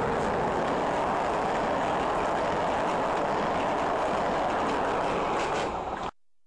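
Passenger train of double-deck coaches hauled by an electric locomotive passing close by, a loud, steady rumble and hiss of wheels on the rails. It cuts off suddenly near the end.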